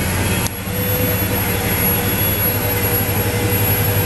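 Diesel engine of a Claas Axion farm tractor running hard and steady under full load as it drags a weight-transfer pulling sledge, with a brief dip in loudness about half a second in.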